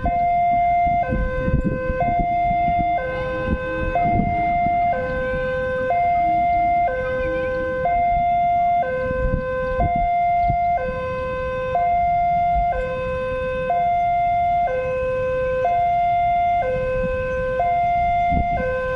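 Railway level-crossing alarm sounding a steady two-tone warning, switching between a higher and a lower tone about once a second, the signal that a train is approaching the crossing.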